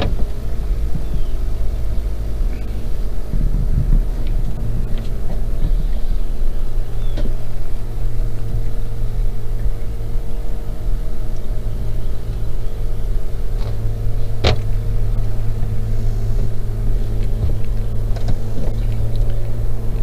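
Boat's outboard motor running steadily at slow trolling speed, a constant low hum. A single sharp click sounds about two-thirds of the way through.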